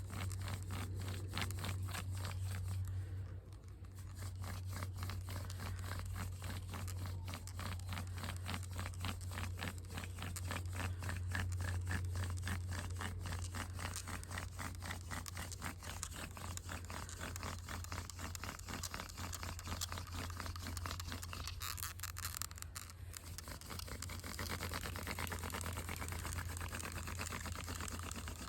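Hand-drill friction fire: an alder spindle twirled back and forth between the palms, its tip grinding in a wooden hearth board in a fast, steady rhythm of rubbing strokes. Light pressure is used to warm the spindle and board, as a burn-in stage before carving a notch.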